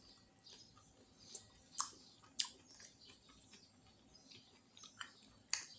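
Quiet close-up chewing, with a few sharp wet mouth clicks and smacks, the loudest about two seconds in and again near the end.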